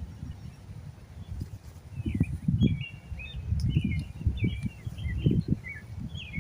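Small birds chirping in quick, repeated short calls, over uneven low rumbling bumps on the microphone.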